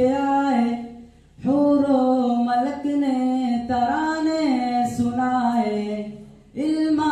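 A boy singing a naat unaccompanied into a microphone: one voice holding long notes that slide between pitches, with two brief pauses, about a second in and near the end.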